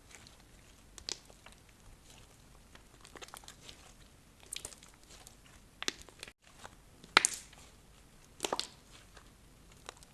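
Slime being pressed and worked by hand, giving irregular sticky crackles and small pops, with a couple of louder pops past the middle.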